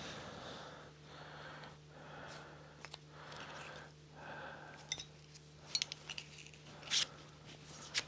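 Metal parts being handled: scattered light metallic clicks and clinks, most of them in the second half and the loudest about seven seconds in, amid soft rustling, over a steady low electrical hum.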